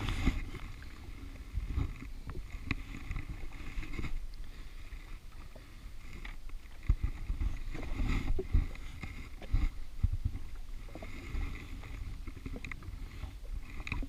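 Small waves lapping and slapping against the hull of an anchored fishing jet ski, with scattered knocks and thumps.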